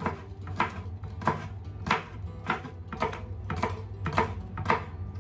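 Chef's knife chopping bell pepper on a wooden cutting board: a steady rhythm of sharp knocks of the blade on the board, about two a second. Soft background music underneath.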